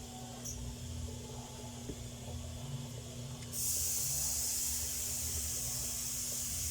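Low rumble with a steady hum. About halfway in, a loud, even hiss starts suddenly and keeps going.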